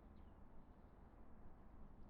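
Near silence: a faint, steady low wind rumble, with one short bird chirp right at the start.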